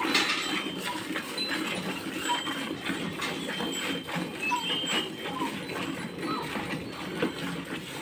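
Cow being milked by hand into a steel bucket: quick alternating squirts of milk hitting the milk already in the bucket, in a steady rapid rhythm.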